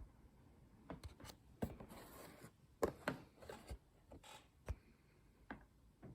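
Toy packaging being handled: faint scattered clicks, taps and light knocks, with a brief rustle about two seconds in.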